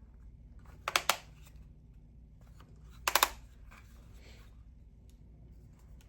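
Plastic push-button of a battery camping light and flashlight being clicked: two quick clicks about a second in, then another quick run of clicks about three seconds in.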